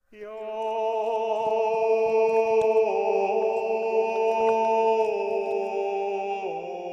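Background music: a sustained, slightly wavering drone of chant-like tones. It steps down in pitch twice and begins to fade near the end.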